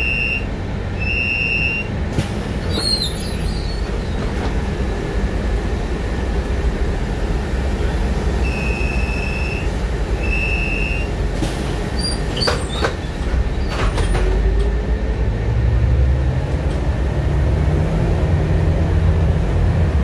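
Bus door chime: a pair of long, steady high beeps at the start and another pair about nine seconds in, over the steady low rumble of the bus. A few sharp knocks follow around twelve to fourteen seconds, then the low rumble grows louder and rises in pitch as the bus moves off.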